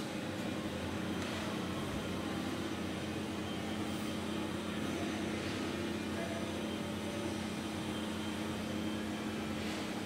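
Diesel engines of the concrete pump and ready-mix trucks running in a steady, even low drone.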